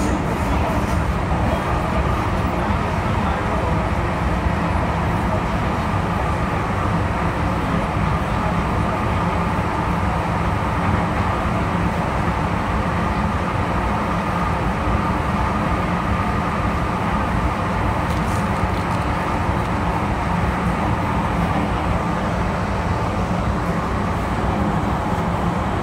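Steady running noise heard inside the carriage of an MTR M-Train electric multiple unit travelling through an underground tunnel. It is a dense, even rumble of wheels on rail and traction equipment, holding a constant level with no marked speeding up or braking.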